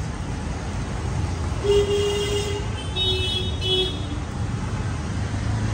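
A vehicle horn honks over the steady low hum of street traffic: one long honk a little under two seconds in, then two short honks about a second later.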